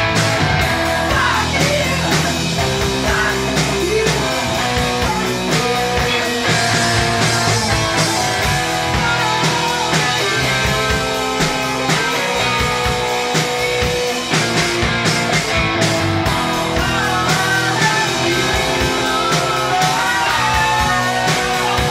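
Punk rock band playing live, with electric guitar to the fore and the band running continuously at full volume.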